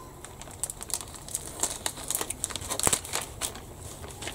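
Thin clear plastic bag crinkling and crackling in irregular bursts as it is held down and slit open with a hobby knife.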